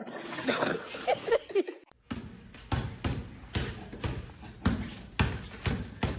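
Brief sliding, pitched cries, then from about two seconds in a run of regular thumps, about two a second.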